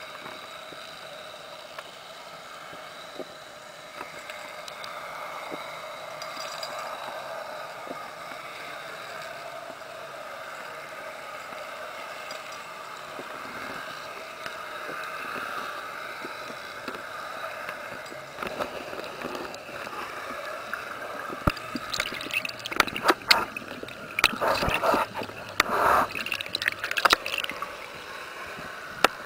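Underwater sound through a camera housing: a steady hiss, then from about two-thirds of the way in, irregular loud gurgling and knocks as air bubbles stream past the camera.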